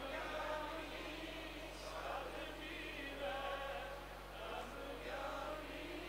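Congregation singing back a call-and-response chant line in unison, faint and distant on the microphone after the lead singer's voice stops.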